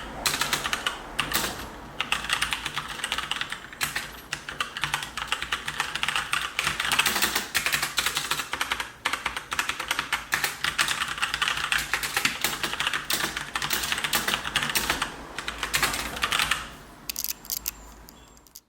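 Fast typing on the IOGEAR HVER Pro mechanical gaming keyboard with brown switches: a dense, continuous clatter of keystrokes that thins to a few scattered presses near the end.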